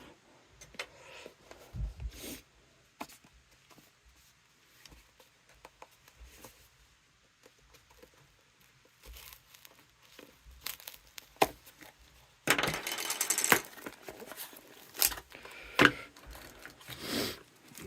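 Product packaging being handled and opened by hand: scattered light clicks and rustles of cardboard and plastic, with a louder tearing about twelve and a half seconds in lasting about a second, then more rustling.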